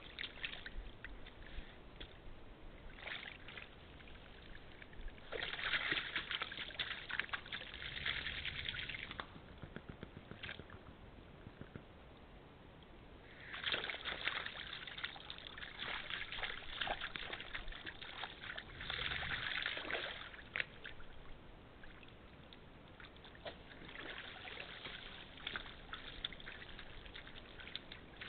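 Red deer hinds and calves moving about in a shallow muddy puddle: water sloshing and splashing in three bouts of a few seconds each, with quieter stretches between.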